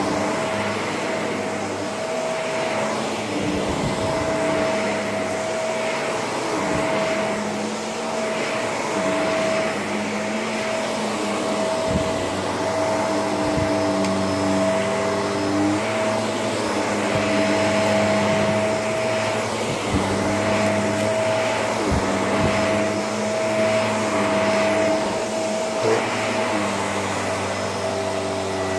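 Shark vacuum cleaner running continuously while being worked over the floor, a steady whine with its lower hum shifting and its loudness swelling and dipping, with a few sharp clicks along the way.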